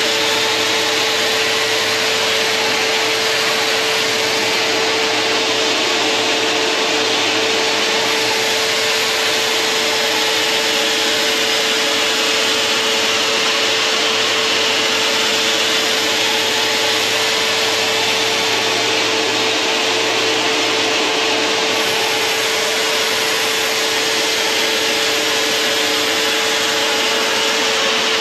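A Henry vacuum cleaner and the motor-driven disc of a home-made scarfing machine running together without a break, the vacuum holding a sheet of thin aircraft plywood down while the disc cuts a fine scarf along its edge. A steady whine sits over a dense hiss.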